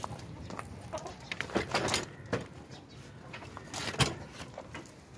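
Chickens clucking in short, scattered calls, with a few sharp clicks, the loudest about four seconds in.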